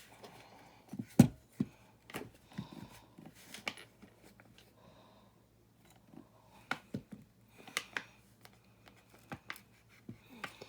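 Scattered clicks, taps and rustles of small plastic building-brick parts being handled and sorted, with one sharper knock about a second in.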